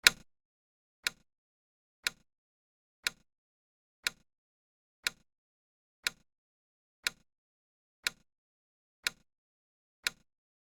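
Countdown timer's clock-tick sound effect: one sharp tick each second, eleven in all, the first louder than the others.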